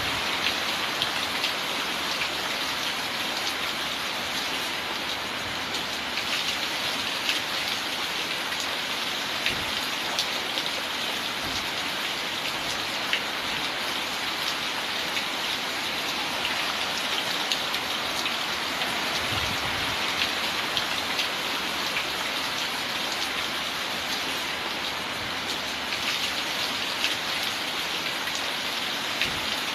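Heavy rain falling steadily: a dense, even hiss with many individual drops ticking sharply through it.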